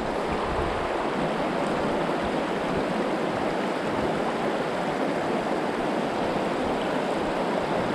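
River water rushing over a rocky riffle and small rapids: a steady, even rush.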